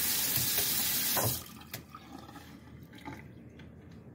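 Water running steadily from a kitchen tap, shut off about a second and a half in, after which only faint small sounds remain.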